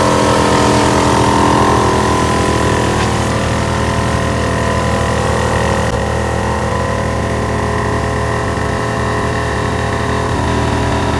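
Smittybilt 2781 12-volt portable air compressor running steadily as it inflates a 37-inch tire, with the Jeep's engine idling underneath.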